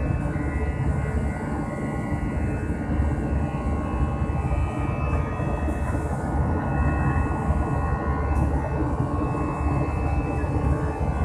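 Airbus A320 jet engines and airflow heard from inside the cabin: a steady, unbroken rumble with a constant hum of engine tones over it.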